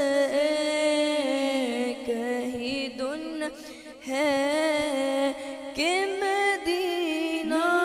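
A boy's voice singing an Urdu naat unaccompanied, holding long ornamented notes with short breaks for breath.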